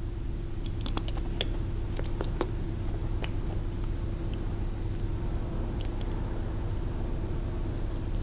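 Light, scattered clicks and taps of small metal parts being handled as a surface grinder hand wheel is fitted onto its threaded shaft, most of them in the first three seconds, over a steady low hum.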